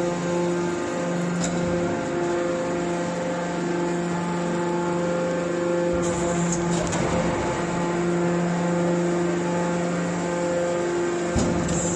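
Hydraulic scrap baler running: a steady pitched machine hum from its motor and hydraulic pump, with a few brief knocks about six seconds in and again near the end.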